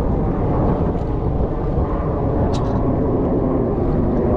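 Steady, loud outdoor roar, mostly low rumble, with no separate events in it.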